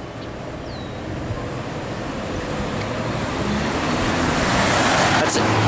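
Road traffic moving off once the crossing gates lift: car engines and tyre noise grow steadily louder as vehicles approach and drive over the crossing. A short clatter comes near the end.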